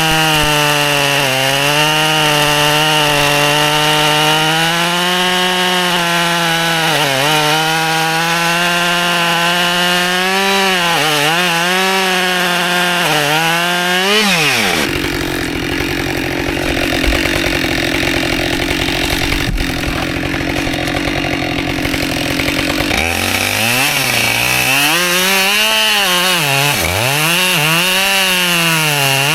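Husqvarna chainsaw cutting white oak rounds at high revs, its pitch sagging and recovering as the chain bites into the wood. About halfway through it drops to a lower, steady running for several seconds, then revs back up and cuts again.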